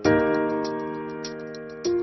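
Background music: sustained keyboard chords, one struck at the start and fading away, a new one near the end, over a light, quick ticking.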